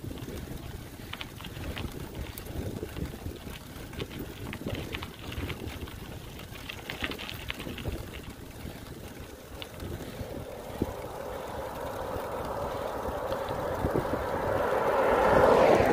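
Wind buffeting the microphone, with a pickup truck approaching and passing close by. Its engine and tyre noise grow steadily louder over the last several seconds, peak just before the end, then fall away quickly.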